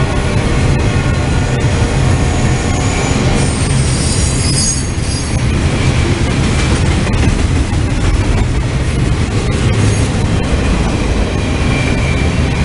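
Freight train's gondola cars rolling past close by: a steady heavy rumble of steel wheels on rail with scattered clicks at the rail joints. A high-pitched wheel squeal rises about four seconds in and returns faintly near the end.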